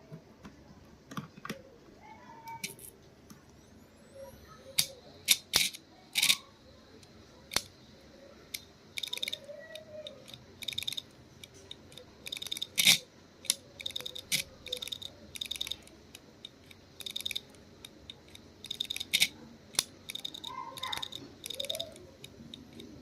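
Hard disk drive clicking: irregular sharp clicks, then clusters of rapid ticks with a few louder clicks among them. The clicking is the sign of a faulty drive.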